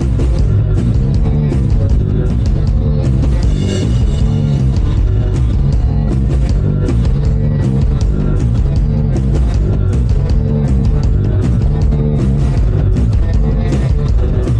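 A rock band playing live and loud through the PA: drum kit, electric bass and electric guitar.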